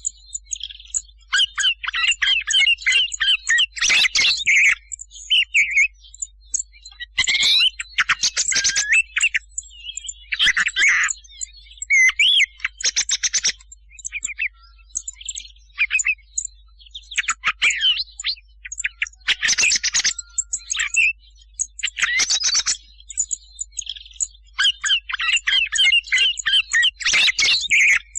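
Recorded thrush song used as a hunting lure: short bursts of varied chirps, whistles and fast rattling trills, each a second or two long with brief gaps between.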